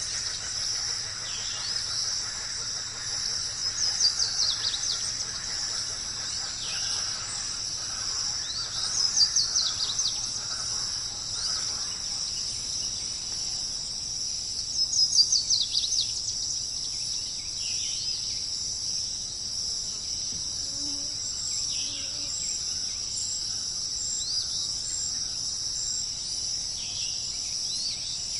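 A steady, high-pitched chorus of crickets, with a songbird singing a short falling trill three times about five seconds apart in the first half, then only faint chirps.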